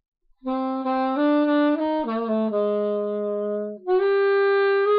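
Saxophone playing a slow melodic phrase: a few stepped notes that settle onto a long held low note, a short breath about four seconds in, then a higher held note.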